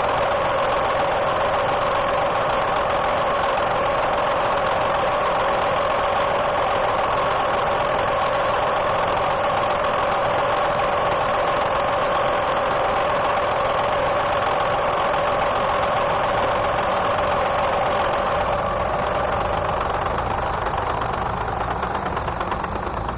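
A Bridgeport Series 1 J-head mill head running on an American Tool Works metal planer, taking a long milling cut on a press brake die: a steady motor and cutter whine over a dense hiss of cutting, easing off over the last few seconds.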